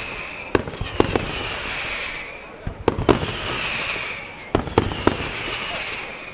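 Fireworks display going off: sharp bangs come in quick clusters of two or three about every one and a half to two seconds, each followed by a hissing crackle.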